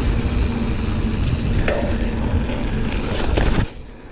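Giant Fathom 29 mountain bike rolling along a dirt trail: a steady low rumble of wind on the microphone and tyre noise, with a few sharp clicks and rattles from the bike. The noise drops off sharply near the end.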